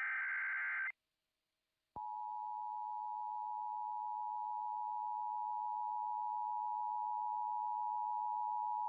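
NOAA Weather Radio alert: a burst of screechy digital SAME header data ends about a second in. After about a second of silence, the steady 1050 Hz Warning Alarm Tone begins, one continuous high beep that signals a tornado warning about to be broadcast.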